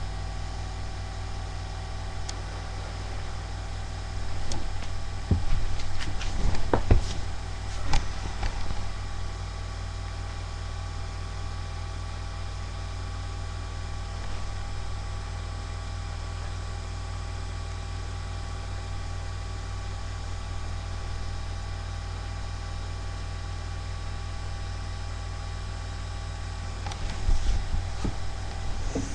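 Steady electrical hum and hiss picked up by a webcam microphone, with a few knocks and rustles between about four and nine seconds in and again near the end.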